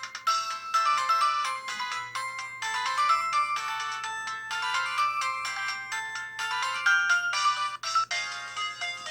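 Polyphonic ringtone melody built into the 2007 Samsung Anycall SPH-W2500 phone: a quick run of short, bright synthesized notes, nearly all high in pitch with almost no bass.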